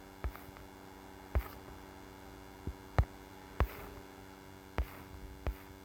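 Computer mouse clicking about seven times at irregular intervals, each a single sharp click, as ingredient checkboxes are ticked on a website, over a faint steady electrical hum.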